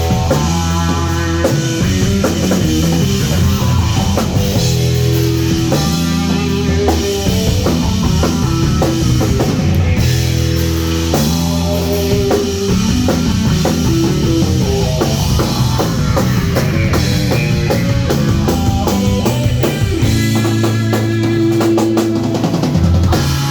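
Live rock band playing loud: distorted guitar chords and bass over a pounding drum kit, with the band hitting a held chord near the end.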